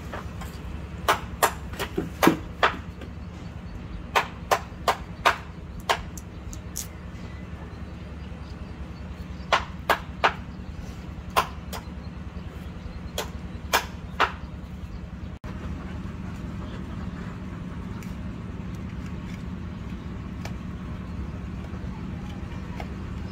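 Small kitchen knife cutting vegetables on a hard table: sharp, irregular clicks and knocks over the first fifteen seconds, then only faint ticks over a steady low hum.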